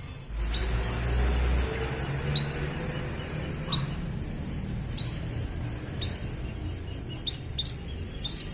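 Canary giving short, sharp high chirps that sweep downward in pitch, spaced about a second apart with a few quick pairs near the end, over a low background rumble.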